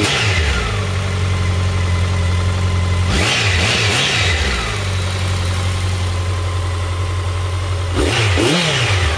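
2013 Honda CB1100's fuel-injected, air-cooled transverse inline-four idling steadily. It is revved briefly about three seconds in and again near the end, the pitch rising and falling back to idle each time.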